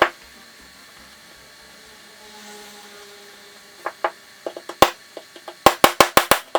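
Sharp taps, a few scattered ones at first, then a fast even run of about six a second near the end.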